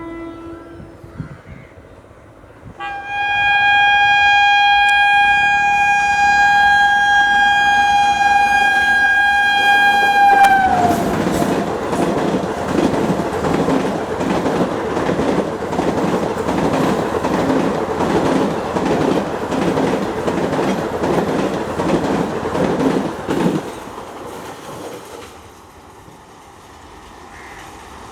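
WAP-4 electric locomotive passing at speed, sounding one long horn blast of about eight seconds whose pitch drops as it goes by. The passenger coaches then rush past with a rhythmic clickety-clack of wheels over rail joints for about thirteen seconds. The clatter cuts back and fades near the end.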